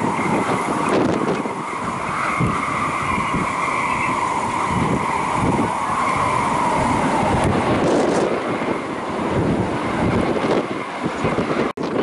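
Strong typhoon wind buffeting the microphone in gusts, with a steady high whine that wavers slightly in pitch.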